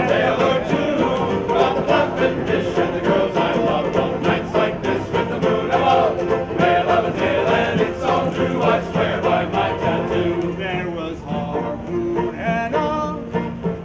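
Background music: a sea shanty sung by a group of voices over a steady beat.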